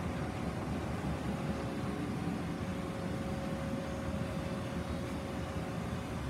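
Amada COMA 567 CNC turret punch press running under power: a steady machine hum with low rumble and a faint steady tone, and no punch strokes.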